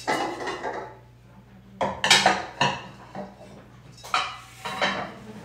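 Dishes and cutlery being handled in a kitchen: several clattering knocks and clinks in short groups, over a steady low hum.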